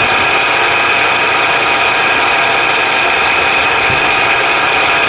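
Car engine running at a steady speed with a continuous growling whine from the belt-driven accessories, the sign of a worn bearing in a belt pulley.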